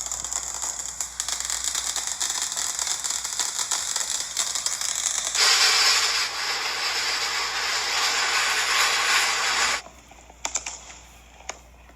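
Firework jet spraying with a steady hiss and fine crackling; it grows louder about halfway through, cuts off suddenly near the end, and a few scattered crackles follow.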